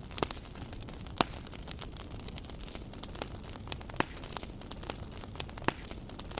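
Wood campfire crackling, with frequent small snaps and a few louder pops, the loudest about a second in, over a steady low rumble.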